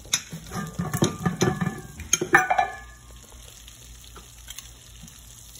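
Melted butter sizzling and foaming in a frying pan. Over the first three seconds a run of clinks and scrapes sounds over the sizzle, then only the steady sizzle is left.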